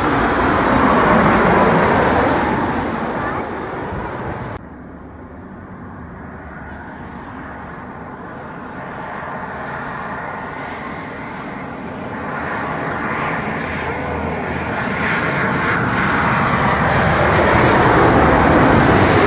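Landing airliners' engine noise at close range. A loud pass cuts off abruptly about four and a half seconds in, where the edit jumps to the next plane. That plane's engine noise then swells steadily as it approaches and is loudest near the end.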